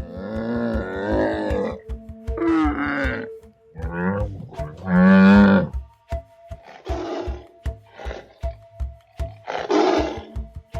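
Large wild animal calling over background music with a steady beat: four drawn-out, gliding calls, the loudest about five seconds in, then three shorter, rough calls.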